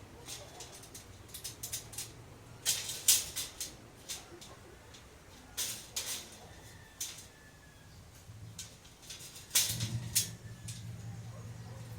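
Irregular metal clinks and knocks from handling slotted steel angle bars and bolts while putting a rack together, some with a brief faint ring. A steady low hum starts with a louder knock near the end.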